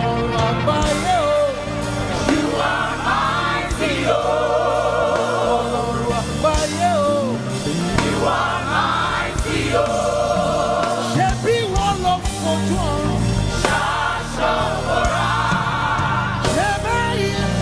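Live gospel praise music: singing with vibrato and sliding vocal runs, joined by choir voices, over a band with sustained bass notes.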